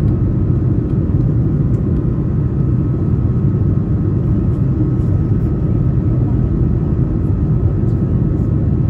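Jet airliner's engines and airflow heard from inside the passenger cabin: a steady, loud low rumble with a thin steady whine on top.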